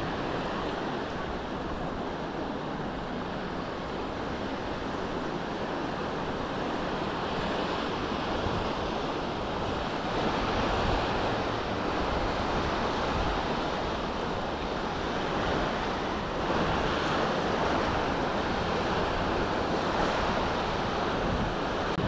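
Small Mediterranean waves breaking and washing up on a sandy beach, a steady surf wash that swells now and then, with some wind rumble on the microphone.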